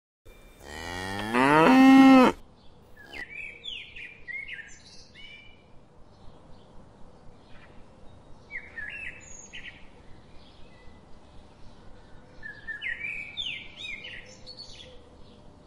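A cow moos once, a long call that rises in pitch and then holds for about two seconds. It is followed by birds chirping in short, repeated phrases.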